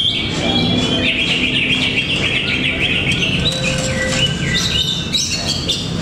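Several caged green leafbirds (cucak ijo) singing at once: a dense, continuous mix of overlapping whistles, chirps and trills, over low background noise.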